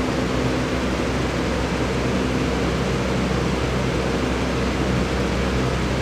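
Steady whir of an air-moving appliance such as a room fan or air-conditioning unit, a constant rushing hiss with a low hum underneath and no change.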